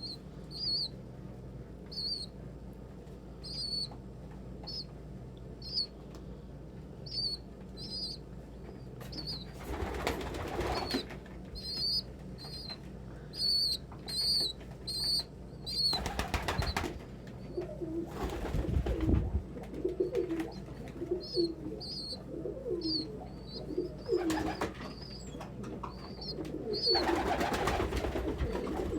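Pigeons in a loft: a steady string of short, high-pitched peeps, wings flapping in brief bursts four or five times, and low cooing in the second half.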